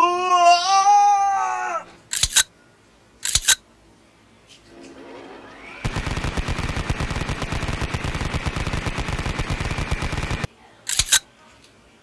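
Sound effects accompanying a plastic toy robot being transformed: a warbling, wavering tone that ends about two seconds in, two sharp clicks, then a rapid rattle of clicks lasting about four and a half seconds, and one more click near the end.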